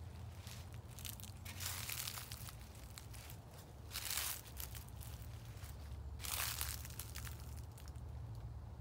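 Footsteps crunching through dry fallen leaves, with three heavier crunches about two seconds apart among lighter rustles and crackles.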